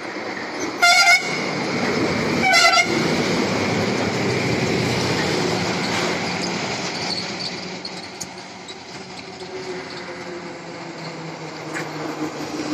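A truck horn sounds two short blasts, about a second and a half apart. Heavy trucks then drive past close by, their engine and tyre noise swelling and fading, and another engine approaches near the end with a slowly falling pitch.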